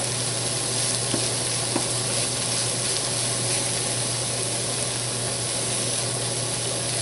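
Steady sizzling of food frying in oil on the stove: shredded cabbage with celery and onion in sesame oil, with breaded chicken pieces frying alongside. A steady low hum runs underneath, and there are two faint taps a little after a second in.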